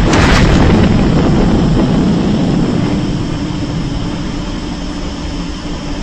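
TV sound-effect explosion: a loud blast hits just before the start, and its deep rumble slowly dies away over several seconds. A steady low hum comes in about two and a half seconds in.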